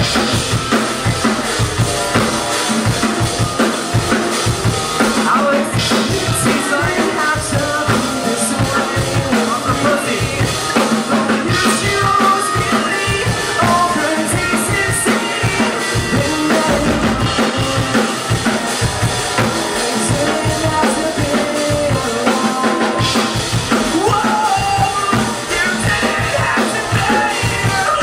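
Live band playing loud, with the drum kit driving a fast passage of bass drum and snare and no vocals.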